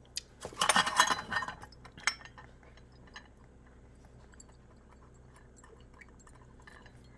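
Stainless steel measuring cups clinking and clattering against each other for about a second and a half, with a single click just before and another just after. Only faint small ticks follow.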